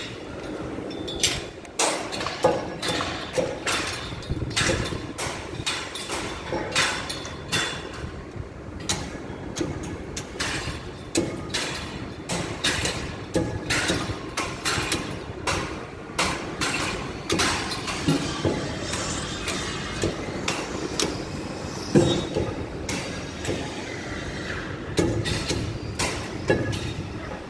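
Building-site noise: frequent, irregular knocks and metal clanks, one to three a second, over a steady low rumble of machinery. The sharpest knock comes about two-thirds of the way through.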